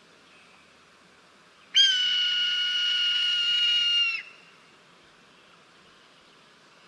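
Red-tailed hawk giving one long, high scream of about two and a half seconds. It starts abruptly, holds a steady pitch and drops slightly just before it cuts off.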